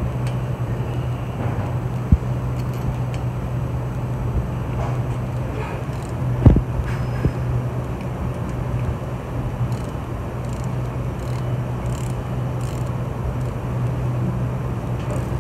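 Steady low hum of shop machinery with a few sharp metallic clicks and knocks from a hand wrench turning the bolts that draw the end cover down onto the bearing housing. The loudest knock comes about six and a half seconds in.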